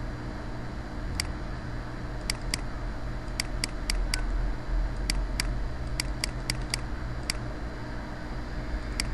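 Computer mouse clicking, about sixteen short sharp clicks at an irregular pace, some in quick runs, over a steady low hum.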